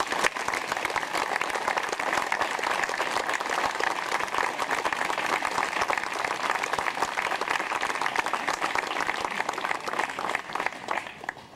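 Crowd applauding steadily, dying away near the end.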